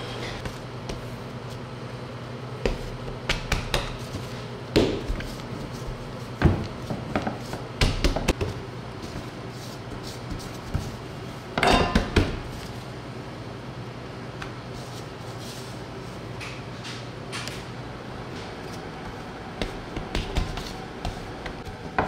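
Café work sounds: scattered knocks, taps and clatter of cups and coffee equipment, the loudest a short burst about halfway through. Underneath is a steady low machine hum that fades out near the end.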